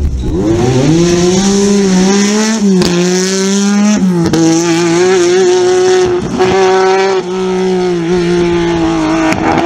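Lancia Stratos rally car's Ferrari Dino V6 accelerating hard away from a corner. The note climbs steeply, drops briefly at upshifts about three and four seconds in, then holds at high revs.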